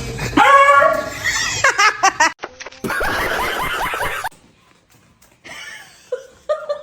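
People laughing, breaking off suddenly about four seconds in, with fainter scattered sounds near the end.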